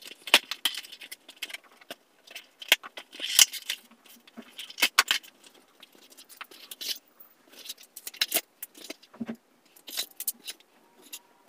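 Toy packaging unpacked by hand: a cardboard box and insert handled, plastic bags crinkling and small plastic pieces rattling, in irregular clicks and taps.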